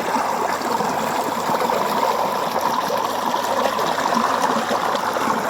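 A steady rush of falling water.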